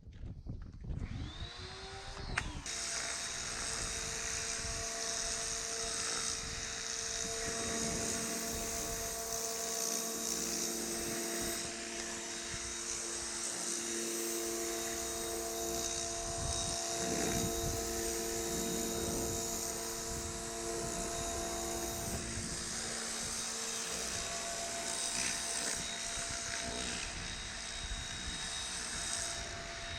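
Pressure washer spinning up in the first couple of seconds, then running steadily, its motor's fixed hum under a strong, even hiss of spray.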